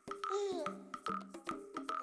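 Light background music: a bouncy tune with clicky percussion, about four strikes a second, and a short sliding melody line.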